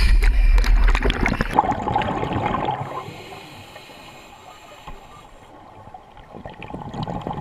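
Water splashing and sloshing around a scuba diver at a river's surface, loud for the first three seconds. It then drops to much quieter underwater bubbling.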